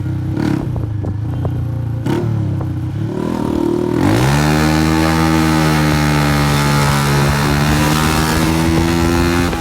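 Honda CG 125 single-cylinder engine running loud through a burst silencer. About four seconds in it revs up sharply and holds the higher revs, then eases off near the end.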